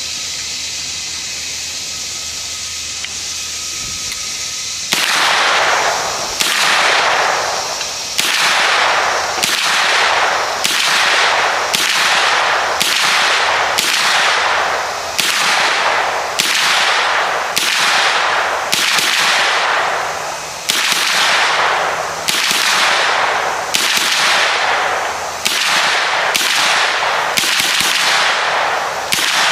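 Gunshots fired one at a time at a steady pace, about twenty of them, each followed by a long ringing decay that falls in pitch. They start about five seconds in, after a stretch of steady hiss.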